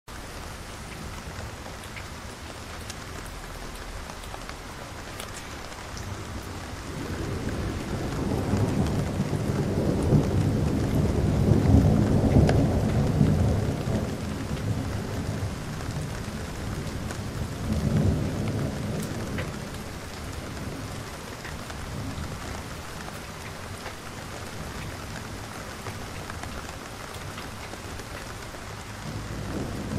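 Overhead hanging spray sprinklers giving a steady hiss of water spray and falling droplets. A low rumble swells up over several seconds, loudest near the middle, and swells once more briefly a few seconds later.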